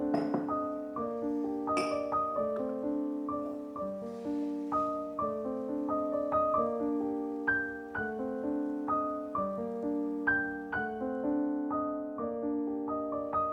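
Background piano music: a gentle, steady run of sustained notes.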